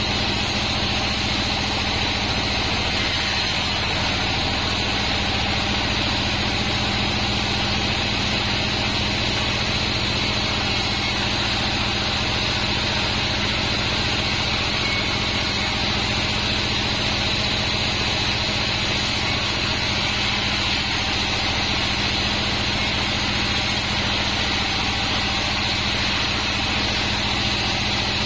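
Band sawmill machinery running steadily in a constant mechanical drone with a steady hum and a high whine, no breaks or changes.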